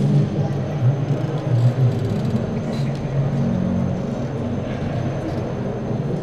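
Low, steady rumbling drone of several deep tones from an ambient electronic soundscape, filling a large domed hall.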